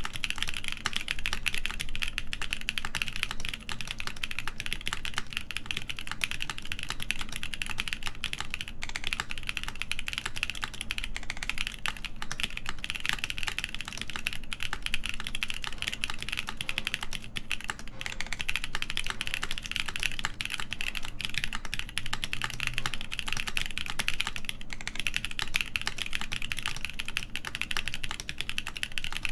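Fast, continuous typing on a mechanical keyboard with BSUN X switches, a full polycarbonate plate and GMK keycaps: dense, even keystroke clicks with no pauses.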